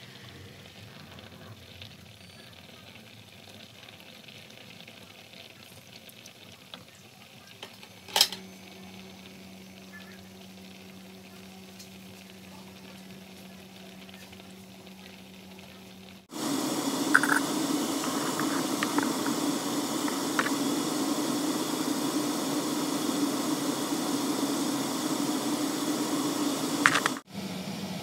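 Sweet and sour sauce bubbling and sizzling at a simmer in a frying pan. A sharp click about eight seconds in is followed by a low steady hum, and about halfway through the sound turns much louder, a steady hiss over a low hum, until it drops back suddenly near the end.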